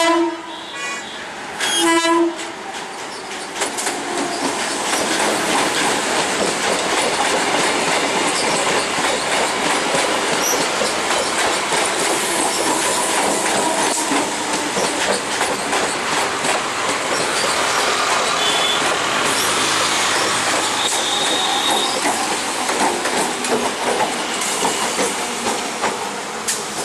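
Electric multiple-unit local train giving two short horn blasts, one at the start and one about two seconds in, then running past close by, its wheels clattering steadily over the rails of a steel truss bridge, with a couple of short high wheel squeals about two-thirds through.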